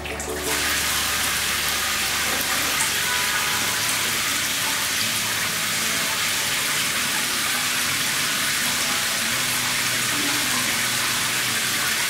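Rainfall top shower head of a shower panel spraying water in many thin streams. The flow comes on suddenly right at the start and then runs steadily.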